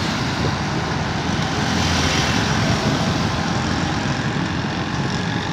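Motorcycle riding along a city road: a steady rush of wind on the microphone over the running engine and road noise.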